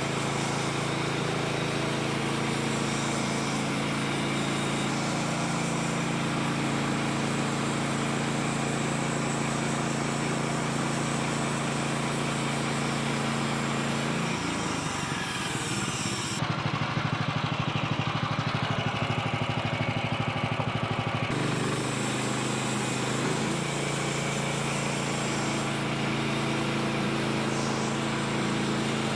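Small gasoline engine of a portable bandsaw sawmill running steadily while the blade cuts a red oak log. Midway through, for about seven seconds, the sound changes to a rapid pulsing before the steady running returns.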